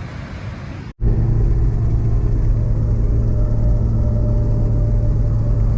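Steady low drone of a car driving, engine and road noise heard from inside the cabin, starting abruptly about a second in after a brief break in the sound.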